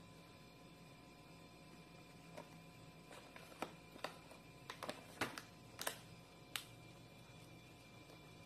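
Quiet room hum with about ten light, irregular clicks in the middle few seconds.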